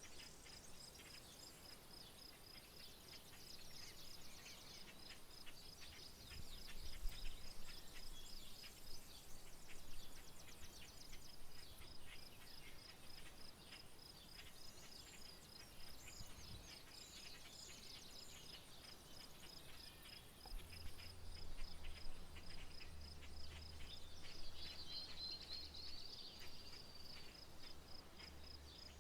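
Rural outdoor ambience: an insect trilling steadily at a high pitch with a fast pulse, with a few short bird chirps over it. A faint low rumble comes in about two-thirds of the way through.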